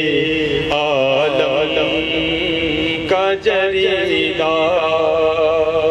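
A man's voice reciting an Urdu naat in a melodic chant into a microphone, holding long wavering notes; he breaks off briefly about three seconds in and starts a new phrase.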